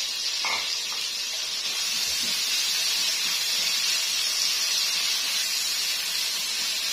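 Sliced red onions frying in hot oil in a kadai, a steady sizzling hiss, as they are stirred with a spatula.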